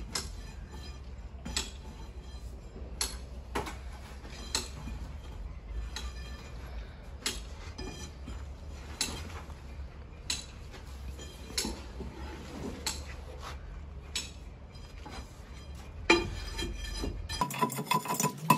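Irregular clinks, knocks and scrapes of a metal rod and shovel working through ash and cinders and striking a foundry crucible, over a low steady hum. Rhythmic music cuts in near the end.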